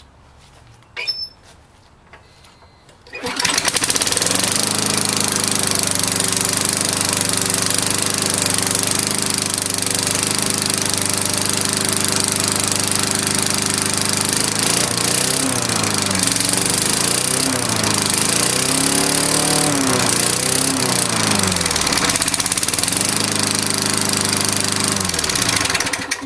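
Cold start of a Tecumseh 3.5 hp single-cylinder lawnmower engine. After a short sound about a second in, it catches about three seconds in and runs steadily and loudly. In the second half its speed rises and falls several times, then it winds down and stops near the end. The owner says the carburettor needs cleaning and suspects low compression.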